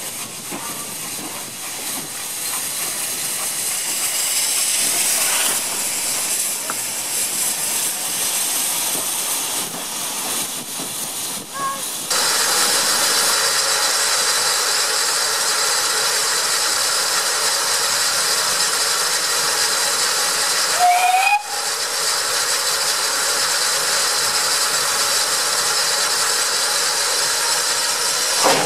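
Steam locomotive hissing as it lets off steam: first the LMS 'Jinty' tank engine 47406, then, after a cut, a steadier and louder hiss from GWR pannier tank 6430 blowing off at its safety valves.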